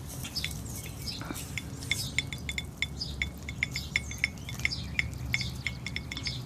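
Chickens pecking yogurt from a dish: their beaks tap the hard container in quick, irregular clicks, several a second, each with a short ring.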